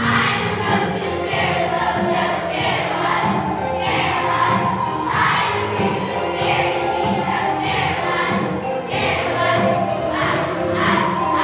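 A choir of young children singing a song together with musical accompaniment.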